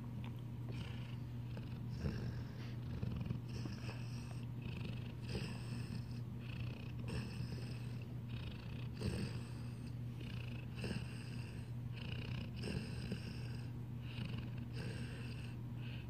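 Large puppy snoring while awake: a soft, raspy snore on each breath, about one every two seconds, over a steady low hum.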